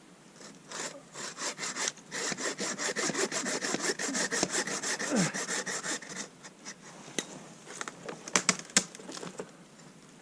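Hand saw cutting through wood in quick, rhythmic back-and-forth strokes, about five or six a second, for about five seconds. After it come a few sharp snaps or knocks.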